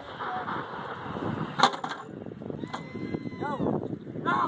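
Crew members' raised voices and handling noise around an M777 155 mm towed howitzer as it is worked after a shot, with one sharp knock about a second and a half in.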